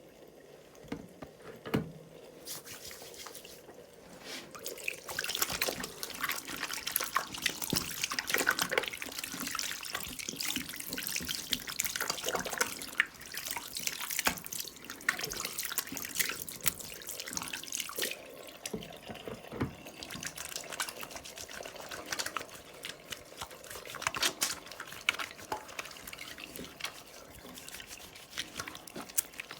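Hands being washed under a running tap at a sink: water splashing and dripping off the hands in irregular splashes. It is quieter for the first few seconds, then busier splashing from about five seconds in.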